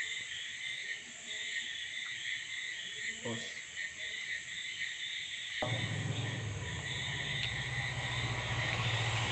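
Steady, high-pitched chirring of insects such as crickets. About two-thirds of the way through, a low steady hum starts abruptly beneath it.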